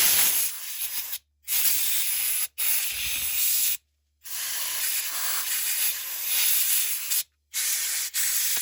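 Compressed air hissing loudly in repeated bursts of one to three seconds, about six in all, blowing gunk out of a chainsaw's stop-switch opening.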